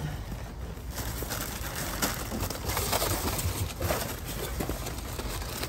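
Plastic bags and packaging rustling and crinkling with many small irregular crackles as trash in a dumpster is rummaged through by hand.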